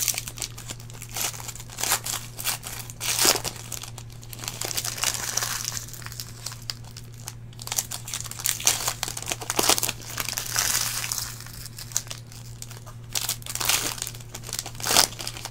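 Trading card pack wrapper being torn open and crinkled by hand, in irregular bursts of crackling, with a steady low hum underneath.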